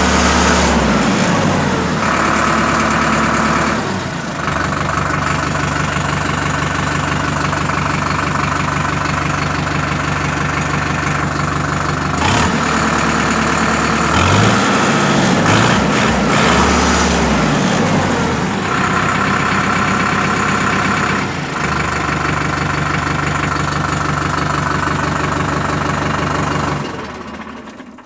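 Sonalika DI 750 tractor's diesel engine revved and held at different speeds: it drops from a raised speed at the start, runs steadily at a few set speeds, is blipped up and down several times near the middle, and falls away near the end. The owner likens its sound to a JCB.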